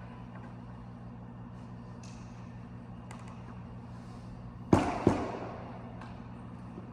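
A long extension pole being set up: light clicks, then a sharp knock and a second one about two-thirds of the way through that echo and die away. A steady low hum runs underneath.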